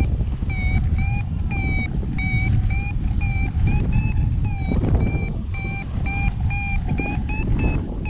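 Paragliding variometer beeping about three times a second, its tone stepping slightly higher at times, the climb tone that signals the glider is rising in lift. Wind rushes on the microphone underneath.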